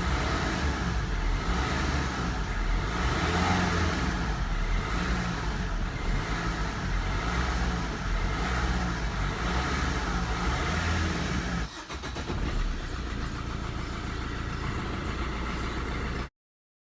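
A car engine running, with a steady low drone that swells and eases. It breaks off briefly about twelve seconds in, resumes, and stops abruptly near the end.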